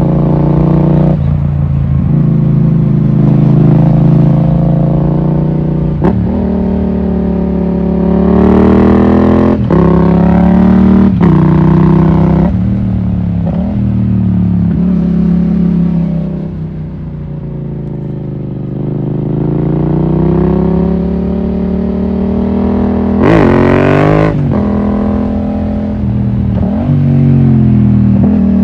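Yamaha MT-07's 689 cc crossplane parallel-twin engine pulling through the gears. The revs rise and then drop sharply at each upshift, several times. There is a stretch of lower, quieter running in the middle as the throttle eases off.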